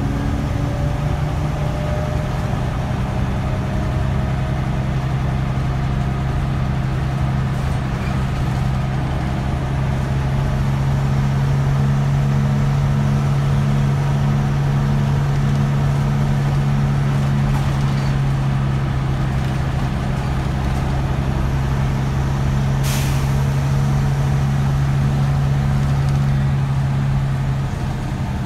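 Scania L94UB bus heard from inside the cabin, its rear engine running with a steady drone that eases off near the end. About two-thirds of the way through, the air system gives one short sharp hiss.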